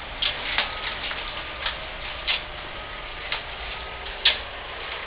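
A human-powered multipurpose machine of chain drives, pulleys and belts being worked by hand, giving irregular sharp clicks and clacks roughly every half second to second, the loudest about four seconds in, over a faint whine.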